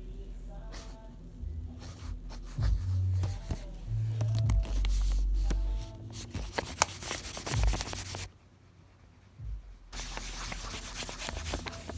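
A fingertip rubbing over pencil graphite on drawing paper, smudging and blending the shading, in scratchy strokes. The strokes stop for about a second and a half after the middle, then start again.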